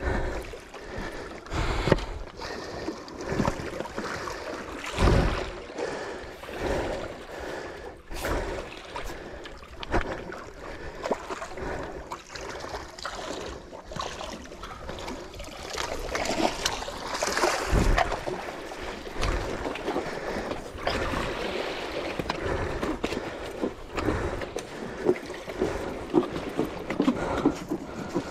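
Sea water washing and splashing against shoreline rocks, with scattered knocks and handling noise close to the microphone.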